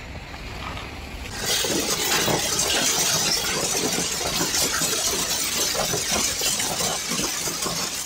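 Hail pelting down on a paved street: a loud, dense clatter of countless small impacts that starts suddenly about a second and a half in. Before it there is only a low rumble of wind.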